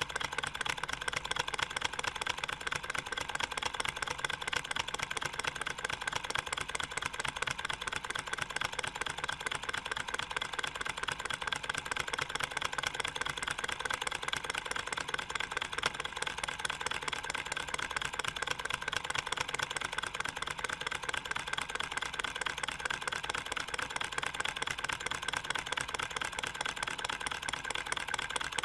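All-metal model Stirling engine running steadily, its pistons, rods and flywheel making a fast, even metallic ticking clatter.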